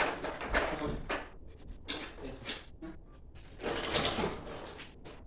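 Hand tools and metal engine parts being handled: irregular clicks, knocks and scrapes, with a longer scraping rattle about four seconds in.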